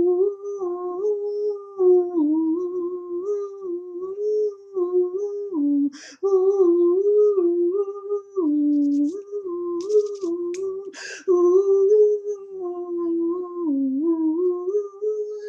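A man humming a slow, wordless improvised melody in long held notes that step up and down, with a quick breath about six seconds in and again about eleven seconds in.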